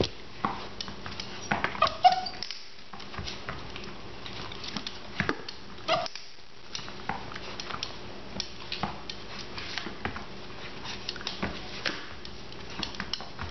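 Border collie puppy moving about on a rug and hardwood floor: scattered sharp taps of claws and paws, with a short whine about two seconds in.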